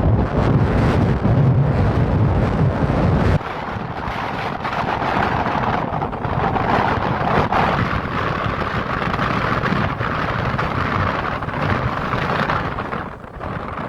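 Strong wind buffeting the microphone with a heavy low rumble, which cuts off suddenly about three and a half seconds in and gives way to a steadier rushing noise.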